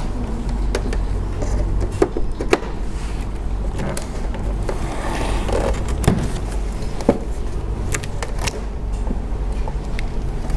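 Steady low hum with a handful of sharp clicks and knocks, from a laptop-style power adapter being swapped and its plug handled and pushed into the all-in-one PC.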